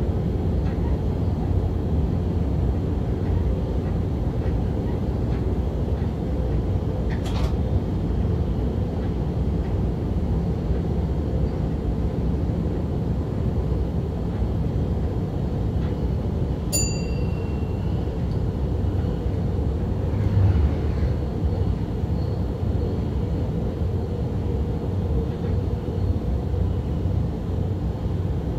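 A Stadler GTW diesel-electric multiple unit running along the line, heard from the driver's cab: a steady low rumble of the engine and the wheels on the track. A short electronic beep sounds about two-thirds of the way through.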